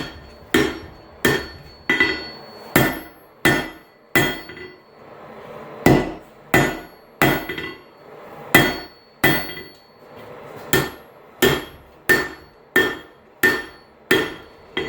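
Blacksmith's hammer striking a hot railroad spike on an anvil, a steady run of blows about a second and a half apart, each with a brief metallic ring, drawing the spike's head down into a bar. The rhythm pauses briefly twice, near 5 and 8 seconds in.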